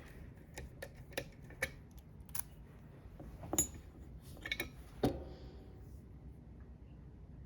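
Small metal clicks and clinks from the just-picked Goal lock and lockpicking tools being handled, a few scattered knocks over the first five seconds, the last one ringing briefly.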